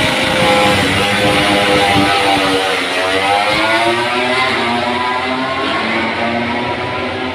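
MotoGP prototype race-bike engines running on the straight, several pitches at once. About three seconds in, one drops in pitch and then winds up steadily as the bike accelerates.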